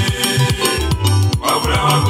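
Upbeat music with a steady beat over a heavy, repeating bass line.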